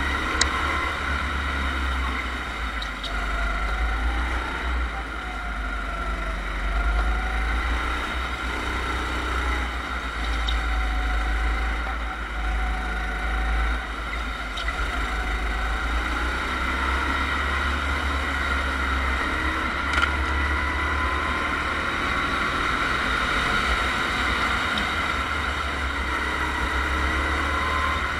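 Go-kart engine heard from a camera mounted on the kart, its pitch rising and falling with the throttle through the corners, over a heavy low rumble.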